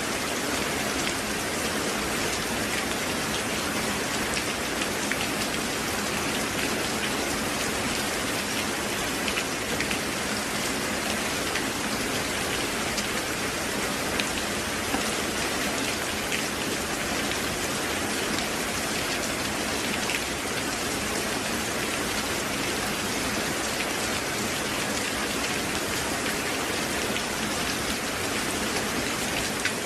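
Steady rain falling: an even hiss of many drops, with a few single drops ticking out now and then.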